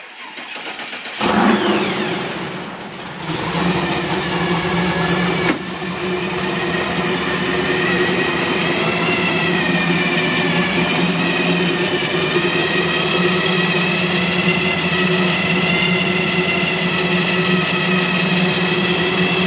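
Supercharged V8 of a 1932 Ford delivery hot rod cranked by the starter and catching about a second in, revved briefly, then settling into a steady idle.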